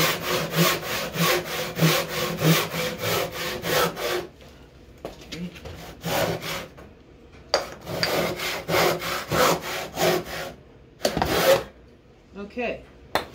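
A hand saw with teeth that cut on both the push and the pull crosscuts through a wooden table leg with quick, even strokes, about three to four a second. The strokes stop about four seconds in, come again in a shorter run, and a short loud rush of noise follows near the end.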